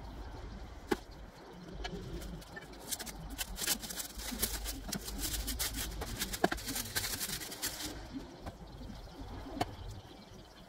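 Thin plastic bag crinkling as it is handled, a dense run of crackles from about three to eight seconds in, with a bird calling faintly in the background.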